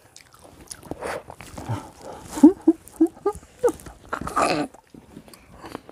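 People eating grapes straight off their plates with no hands, slurping and sucking them up and chewing with full mouths. About halfway through come a few short muffled hums through closed mouths, then a louder breathy burst.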